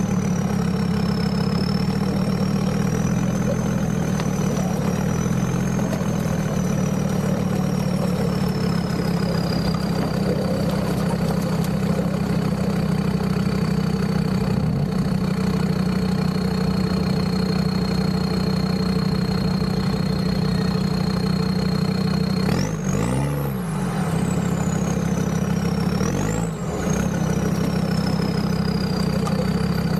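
Land Rover Discovery 2's Td5 five-cylinder diesel running at low, steady revs, with a thin high whine that rises and falls with engine speed. Twice near the end the revs rise sharply for a moment and drop back.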